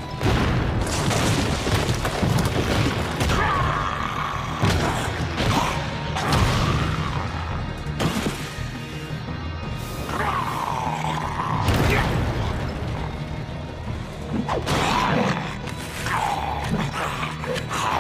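Cartoon fight soundtrack: dramatic background music with several heavy crash and impact sound effects.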